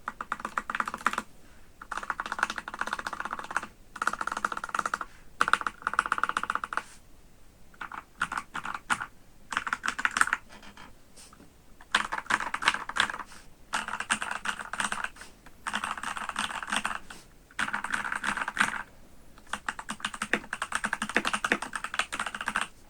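Typing on a mechanical keyboard: an Epomaker GK68X with filmed Durock L7 67 g linear switches and POM jelly keycaps, with lubed stock stabilizers and neoprene foam in the case. Fast runs of key presses go on for a few seconds at a time, broken by short pauses.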